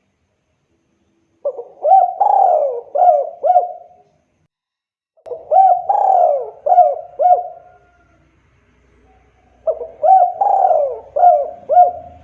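Spotted dove (tekukur) cooing: three phrases of four or five notes each, a few seconds apart. It is a male in full song, the kind played to set other tekukur cooing.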